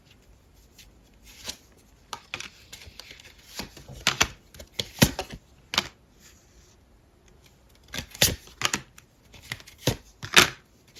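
Tarot cards being handled: irregular snaps, flicks and slides of card stock, with quiet pauses between them.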